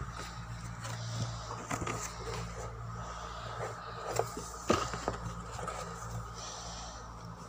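Handling and rummaging noises from a handheld phone and a cardboard box of small items: scattered light clicks and knocks, with one sharper knock about two-thirds of the way through, over a steady low hum.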